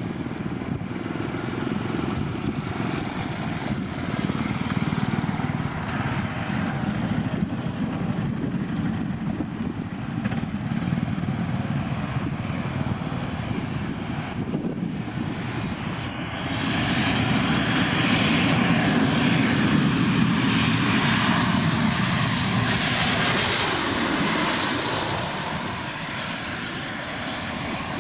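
Boeing 737 jet engines on a landing aircraft: a steady jet rumble that swells to a loud roar about halfway through, with a falling pitch as it passes close, then eases back near the end.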